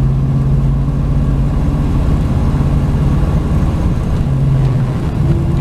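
1996 Chevy Tahoe's gasoline V8 pulling steadily in high gear on the road, running without the misfire or exhaust 'fart' now that the failed plug wires, cap and rotor have been replaced. Near the end the engine note shifts, which the driver takes for the torque converter locking up.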